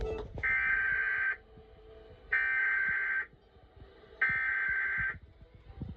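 Emergency Alert System SAME header: three bursts of buzzing digital data tones, each about a second long with short gaps between them, opening a relayed severe thunderstorm warning.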